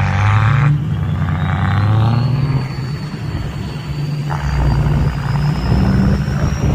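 Diesel pickup truck engine running with a steady low rumble, a faint high whine slowly rising in pitch over it.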